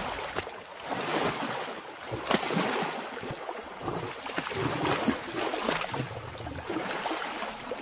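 Water splashing and sloshing unevenly, with many short irregular splashes, as of a large animal moving through a river.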